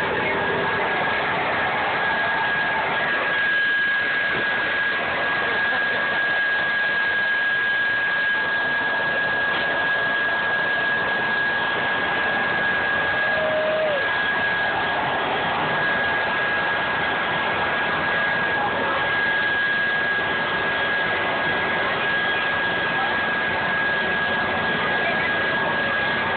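Steady machine noise: a constant rushing drone with a thin high whine held on one pitch, unchanging throughout.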